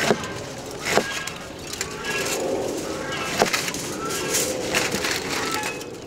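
A large kitchen knife slicing lemons, limes and oranges, the blade knocking sharply on a wooden cutting board about three times. Birds chirp in the background.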